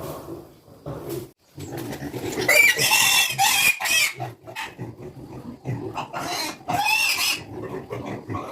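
Pigs grunting, with two loud, high-pitched squeals, one a few seconds in and another near the end.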